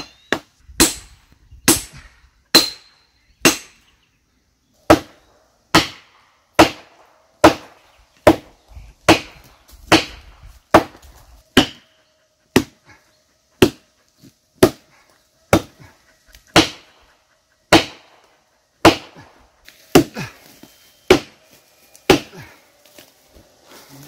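Steady hatchet blows, about one a second with a short pause about four seconds in, driving felling wedges into the back cut of a large spruce to tip it over.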